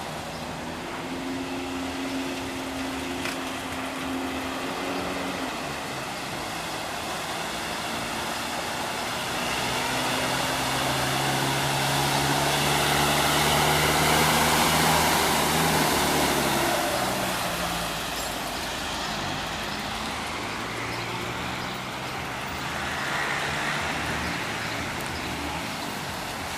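Steady hiss of rain with motor vehicles running on a wet road; one passes close, growing louder to a peak about halfway through and then fading.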